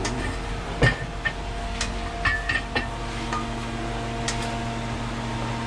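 Cooking utensils clinking and knocking against a pan as the stir fry is handled, several short knocks in the first three seconds and one more later, the loudest a little under a second in. A steady hum with a few fixed tones runs underneath, like a kitchen exhaust fan.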